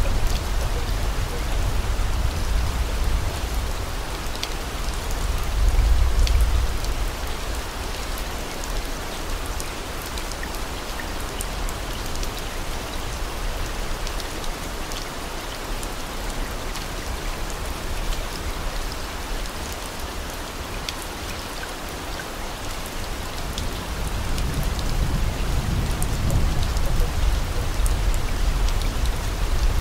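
Steady rain-like hiss with scattered fine drop ticks. A low rumble swells about six seconds in and again near the end.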